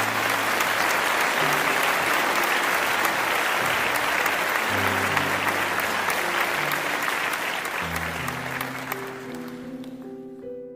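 An audience clapping steadily, dying away over the last two seconds or so, with background music underneath.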